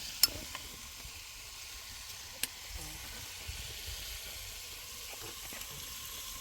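Steady hissing noise with two sharp clicks, one near the start and one about two seconds later.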